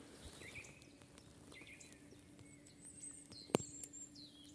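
Faint birdsong in woodland: scattered short chirps and whistles. A single sharp click about three and a half seconds in.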